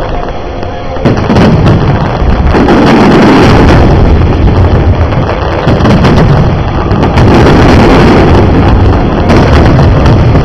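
Aerial fireworks going off in a rapid, near-continuous string of bangs and crackles. The volley thickens and gets louder about a second in.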